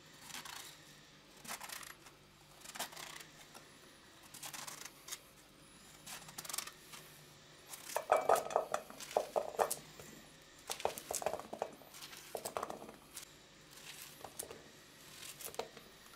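Kitchen knife cutting a zucchini into cubes held in the hand, the diced pieces dropping into an enamel bowl as irregular clusters of light knocks and clinks, louder and denser from about halfway through.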